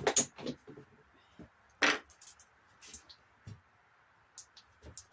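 Scattered clicks and knocks of metal parts being handled while fitting the exhaust to a GY6 scooter engine, with the loudest knock about two seconds in.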